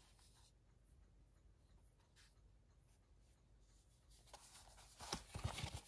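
Mostly near silence, then from about four seconds in a few soft rustles and clicks of a plastic 4K Blu-ray keep case being handled.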